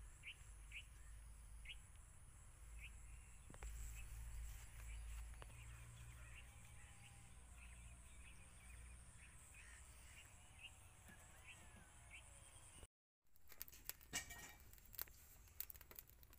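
Faint small-bird chirps, short and high, about one a second, over a low rumble. After a cut near the end, a wood fire crackles with sharp irregular pops.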